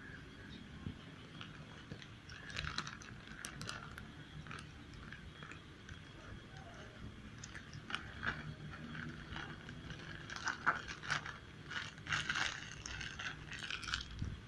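Cats chewing and crunching pieces of chips: irregular crisp clicks and crunches, coming thickest in the second half.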